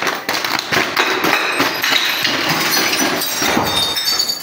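A plastic bottle tumbling down marble stairs, a dense run of knocks and clatters as it bounces from step to step and strikes glass bottles, with glass clinking. The clatter dies away near the end.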